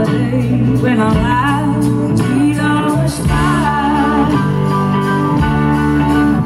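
Live blues-rock band playing: a woman's lead vocal over electric guitars, bass and drums, heard from the audience.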